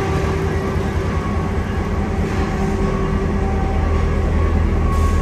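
Diesel locomotive engine idling: a loud, steady low hum with several steady tones above it. A short hiss near the end.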